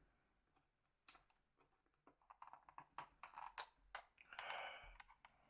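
Faint, irregular small clicks and a brief scrape of a small tool and plastic phone casing being handled during disassembly.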